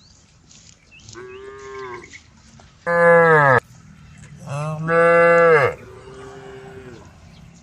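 Cows mooing: four moos at different pitches, the two loudest in the middle, each call dropping in pitch as it ends.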